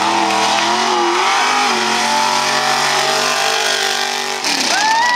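Mega truck's engine revving hard while it churns around a dirt track, with the revs rising and falling and then held high and steady. Near the end the engine note dips, then a sharp rev climbs, holds and drops away.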